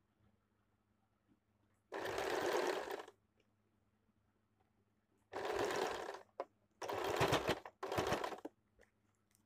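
Electric domestic sewing machine stitching in four short runs of about a second each, stopping and starting between them as the fabric is guided along a seam.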